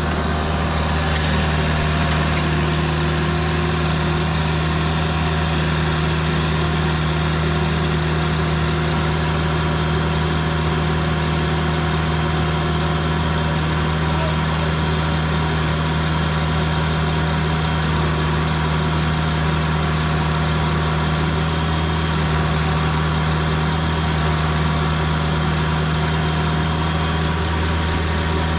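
Heavy-equipment engine running steadily at a constant speed, an even low hum with no revving.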